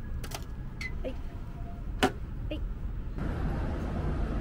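Low, steady rumble of night-time street ambience with distant traffic, broken by a few sharp clicks, the loudest about two seconds in. About three seconds in it gives way to a steadier hiss of traffic noise.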